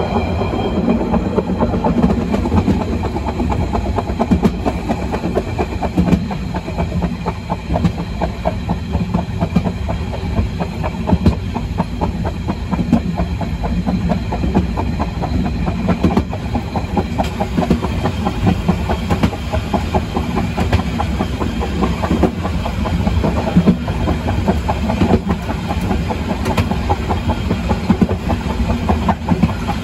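Carriage of a metre-gauge Harz narrow-gauge train running steadily on the rails: a continuous rumble with many small clicks and knocks from the wheels and running gear.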